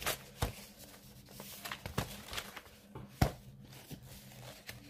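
Handling of a cross-stitch kit's thread cards and packaging: soft paper-and-plastic rustles with a few sharp taps, the loudest a little over three seconds in.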